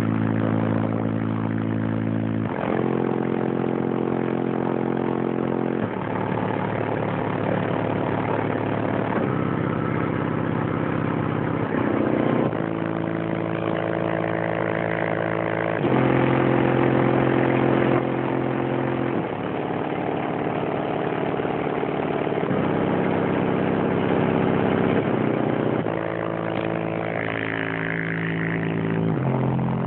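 Music playing through the car's aftermarket stereo system, sustained chords that change every few seconds, with the car's engine off and the system running on its batteries.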